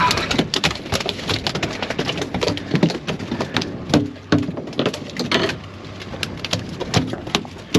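Irregular knocks, taps and clatter on a small fibreglass fishing boat as a smoothhound is brought aboard and rods are moved about among the stainless rod holders.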